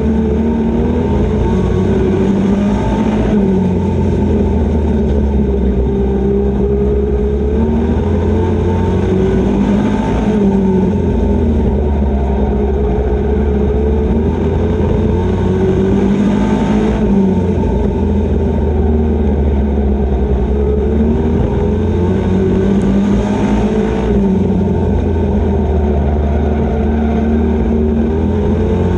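Super Pro Truck's racing engine heard from inside the cab at racing speed. The revs climb and drop in a cycle that repeats about every seven seconds, as the throttle is opened and lifted around the track.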